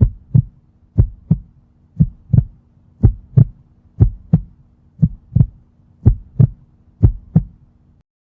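Heartbeat sound effect: eight lub-dub double thumps, about one a second, over a faint steady hum.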